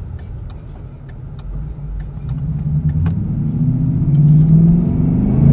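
2017 Mustang GT's 5.0 Coyote V8 breathing through a Ford Performance exhaust (Borla S-Type style, no x-pipe resonator), heard from inside the cabin as the car accelerates. A low rumble that rises steadily in pitch and loudness from about a second and a half in.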